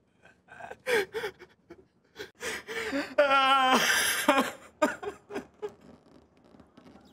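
A man crying: sharp gasping sobs, then a loud, wavering wail about three seconds in that breaks off into fainter sobs and whimpers.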